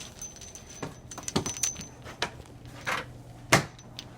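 Metal fittings clinking and knocking as a washing machine hose is handled and hooked up to a water heater's service valve: a handful of sharp clicks, the loudest about three and a half seconds in.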